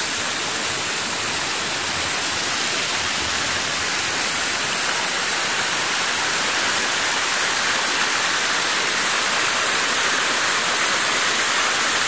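Hill river in high flow after rain, rushing and splashing over boulders in a steady rush of white water that grows slightly louder as it goes on.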